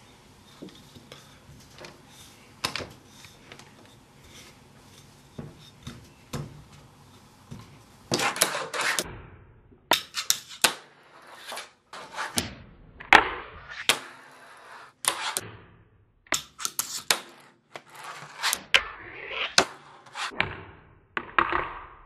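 Fingerboard tricks: sharp clicks of the board popping and landing, and short scraping runs as the trucks grind and slide along the edge of a tile-topped ledge, repeated several times. For the first eight seconds there are only faint scattered taps; the loud clicks and scrapes start about eight seconds in.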